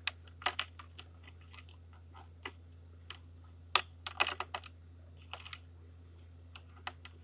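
Silver anklet chain clinking and rattling as it is swished and lifted in a plastic tub of rinse water: small irregular clicks in short clusters, the busiest about four seconds in.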